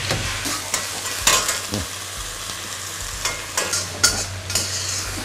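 Holy basil leaves and sauce sizzling as they are stir-fried in a wok over high heat to wilt the leaves, with a metal wok spatula scraping and clanking against the pan about once or twice a second.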